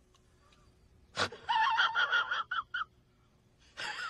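A sharp click about a second in, then a burst of high-pitched, wavering voice-like sounds, and near the end a voice-like sound sliding steeply down into a low groan.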